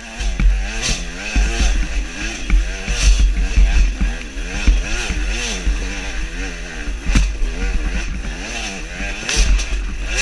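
Off-road motorcycle engine revving up and down again and again as the throttle is worked over a rough trail, with wind rumbling on the helmet-mounted microphone.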